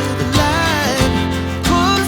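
Background music: a pop song with a sung melody over instruments and a steady beat.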